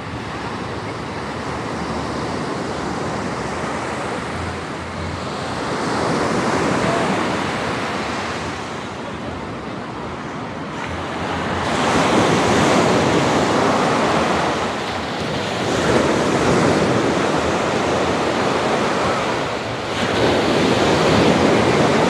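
Small ocean waves breaking and washing up a sandy beach. The surf swells and fades in several surges, louder in the second half.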